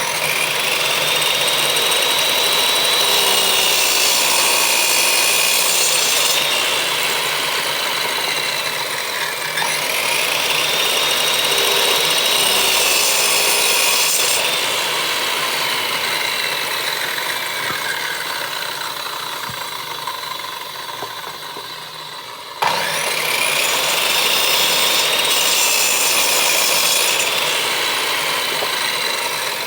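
An electric power tool working wood, its motor whine sagging in pitch as it bites into the wood and rising again as the load eases, over a steady rasping noise. The tool dies down briefly and starts up again sharply about 23 seconds in.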